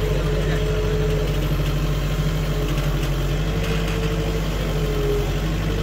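Skid-steer loader's engine running steadily at idle close by, a constant low drone with a faint higher hum above it.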